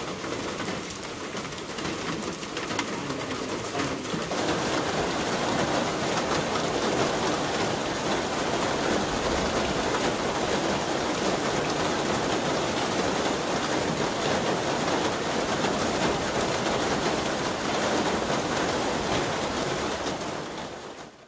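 Steady rain falling, a dense even hiss of drops that gets louder about four seconds in.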